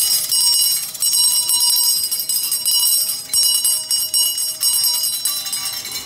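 Brass handbell shaken by hand over and over, its strikes running together into loud, continuous ringing.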